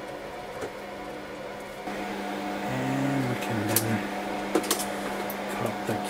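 Steady hum of running computer equipment, several steady tones layered together. It grows a little louder about two seconds in, and a few sharp handling clicks come near the middle.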